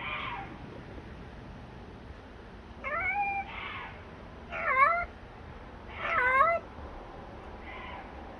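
Domestic cat meowing: a string of about five short, wavering calls, the loudest two about halfway through, with fainter ones at the start and near the end.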